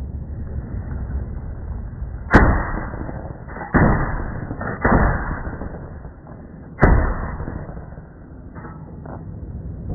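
Four shotgun blasts, irregularly spaced a second or two apart, each with a short fading tail.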